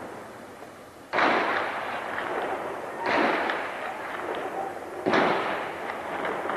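Heavy gunfire: three loud reports about two seconds apart, each trailing off in a long rolling echo.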